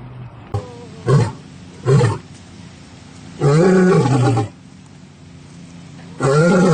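Big cat roaring: two short calls about a second apart, then two longer roars of about a second each that rise and fall in pitch.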